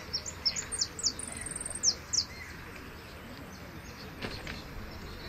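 Caged jilguero finch singing: a quick run of short, sharp, high whistled notes with a buzzy note in the middle over the first two seconds or so, then a few fainter notes about four seconds in.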